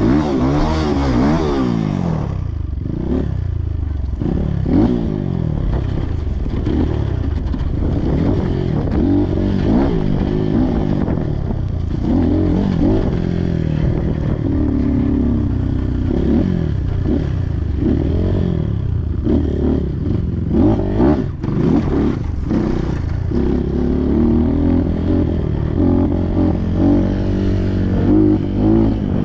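Trail motorcycle engine revving up and down over and over under load, with scraping and clattering.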